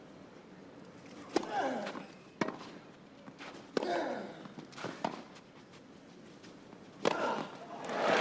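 A baseline tennis rally on a clay court: five sharp racket-on-ball hits about a second and a quarter apart, every other hit followed by a short falling sound. Crowd applause swells in at the end as the point finishes.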